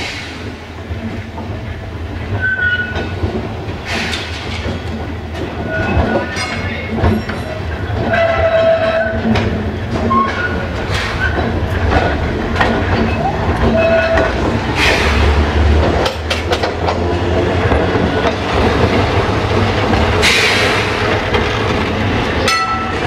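Glasgow Corporation double-deck electric tram No. 1282 running slowly towards and past on street track: a steady low hum from the car, getting louder as it comes close, with clicks and knocks as the wheels cross rail joints and pointwork.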